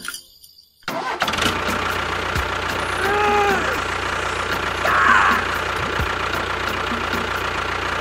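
Tractor engine starting up about a second in, then running steadily with an even low hum. A short pitched tone that rises and falls cuts in about three seconds in.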